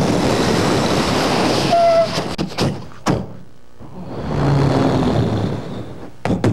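Film-style sound effects for a mimed story: a rush of noise cuts in suddenly, with a short tone near its end. Several sharp thuds and knocks follow, then a second swell of noise with a low hum, and a few more knocks near the end.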